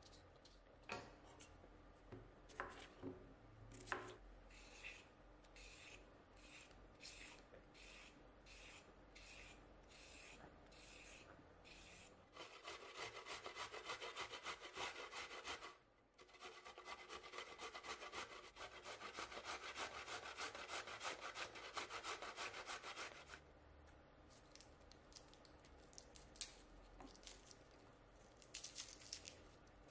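Carrot grated on a stainless steel box grater over a wooden bowl: rapid, even rasping strokes, the loudest sound, with a short break partway through, after slower separate strokes. A few knocks come first, and faint crackles of garlic skin being peeled come near the end.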